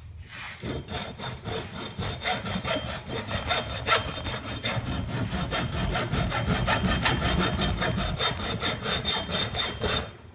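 Hacksaw sawing back and forth through a hard part taken from an appliance, in quick, even strokes of about three a second; the sawing stops just before the end.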